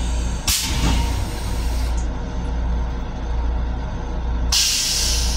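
Steady low rumble of a Long Island Rail Road M7 electric railcar running, heard inside its restroom, with two bursts of hissing: one about half a second in lasting over a second, and another near the end.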